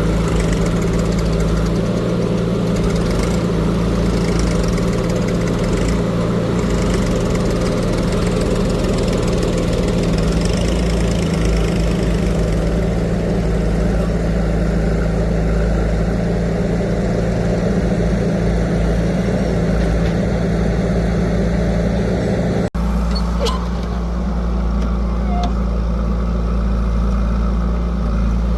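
Heavy diesel engine running steadily at a fairly constant speed, with a sudden break about three-quarters of the way through, after which the engine sound carries on.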